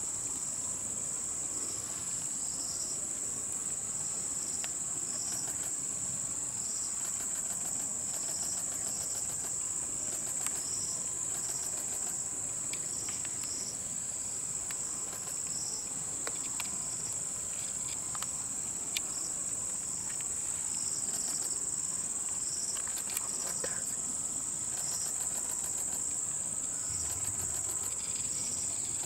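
Steady high-pitched drone of insects, with a second insect chirping in short repeated pulses just below it and a few faint scattered clicks.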